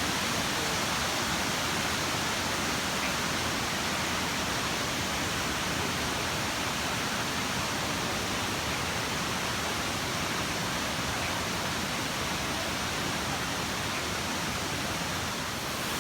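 A waterfall's falling water rushing steadily, an even hiss with no break.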